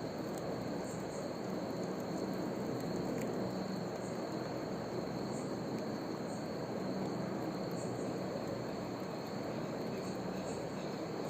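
Steady background noise with a constant thin high-pitched whine, and no clear distinct events.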